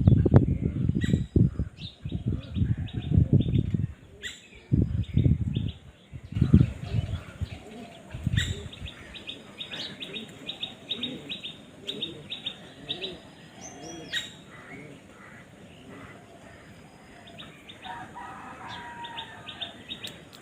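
Birds chirping in quick runs of high notes. Wings flap loudly in a series of low fluttering bursts during the first several seconds, and a lower warbling call comes in near the end.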